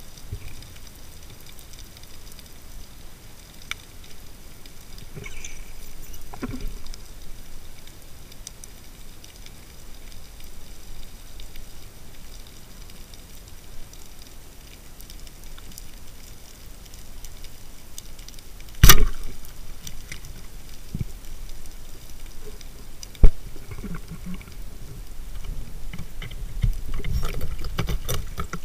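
Muffled underwater water noise heard through a diving camera's housing, with scattered faint clicks and two sharp knocks, the louder one about two-thirds of the way in and a second a few seconds later; a low rumble of water movement builds near the end.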